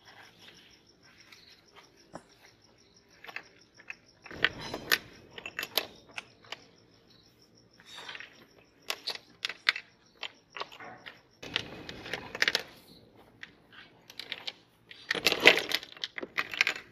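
Sticks of chalk clattering and clicking onto a wooden tabletop as they are tipped out of a cardboard box, with the box being handled in between. The clatters come in several bursts, and the loudest comes near the end.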